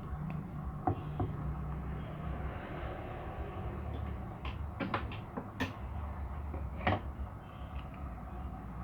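Sharp plastic clicks and knocks, about six scattered through, as the cover cap on a washing machine's pulsator is pried loose with a knife, over a low steady hum.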